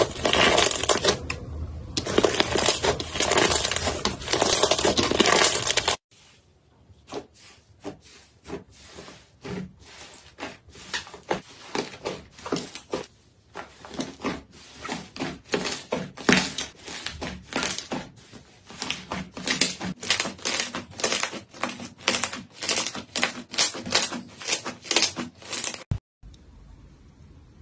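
Slime being squeezed and worked by hand: a dense crunchy crackling, then after a sudden cut about six seconds in, a long run of quick sticky clicks and pops, several a second. Near the end it cuts to a much quieter stretch.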